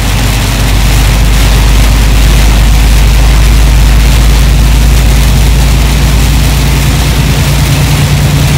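Semi-truck's diesel engine running steadily at low freeway speed, heard from inside the cab as a deep rumble that grows louder about a second in. Over it is an even hiss of heavy thunderstorm rain on the windshield and the wet road.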